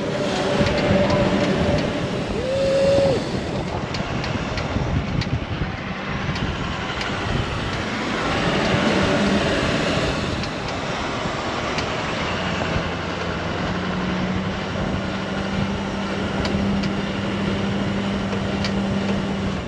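Chevrolet Silverado pickup driving through soft sand while towing an 8 m boat: the engine drones steadily under load beneath a continuous rush of tyre and wind noise.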